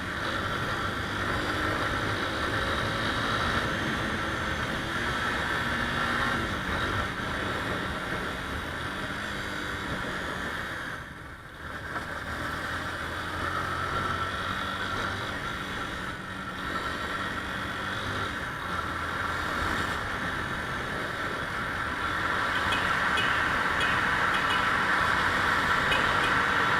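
Motorcycle engine running steadily while riding, with road and wind noise over it; the sound briefly drops about eleven seconds in.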